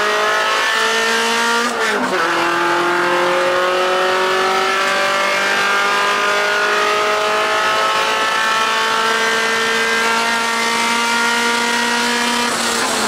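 A 2.5-litre four-cylinder engine in an NC Mazda Miata race car, heard from inside the cabin at full throttle. Its note climbs, drops once at an upshift about two seconds in, then rises steadily through a long pull. Near the end the note breaks up as the throttle closes for hard braking.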